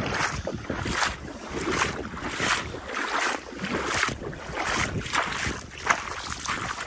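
Footsteps in a steady walking rhythm, about one every three-quarters of a second, over wind buffeting the microphone.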